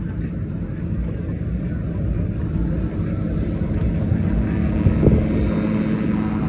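Small propeller airplane flying low toward the listener, its engine drone growing steadily louder, with wind buffeting the microphone.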